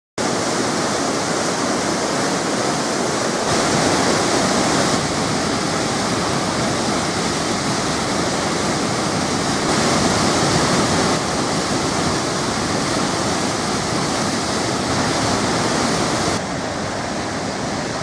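Huka Falls on the Waikato River: a large volume of white water rushing through a narrow rock chute and over the falls in a loud, steady roar. Its level steps slightly up or down at a few points.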